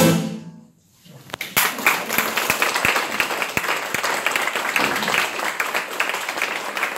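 The last strummed chord of two acoustic guitars rings out and dies away. About a second in, the audience breaks into steady applause.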